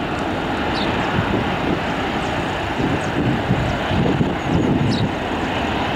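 Airbus A321 jet engines at taxi power, a steady distant rush, with wind buffeting the microphone.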